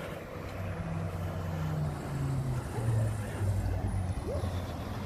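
Road traffic with a fire engine approaching: a low engine note glides down in pitch, then a heavy engine holds a steady low running note, with a short rising squeak about four seconds in.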